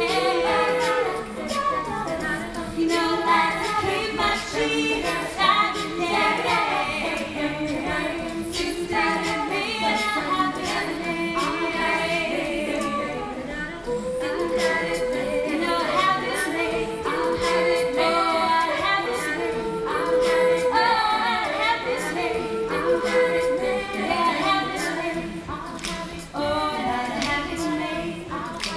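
All-female a cappella group singing: a lead voice over sung backing harmonies, with no instruments.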